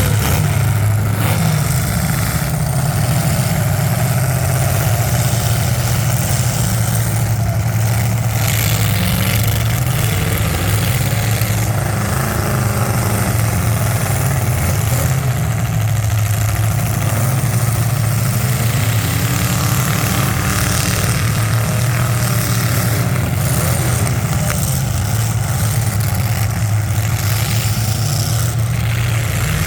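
Several demolition derby cars' engines running and revving, steady and loud, with pitch rising and falling in the middle part.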